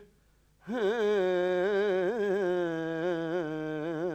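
Male naat singer's voice: a held note breaks off for a short pause, then a long sung phrase with wavering, ornamented pitch starts under a second in.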